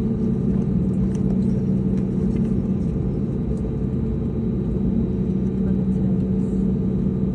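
Steady low rumble of an Airbus A320neo airliner, heard as even engine and airflow noise with no rise or fall.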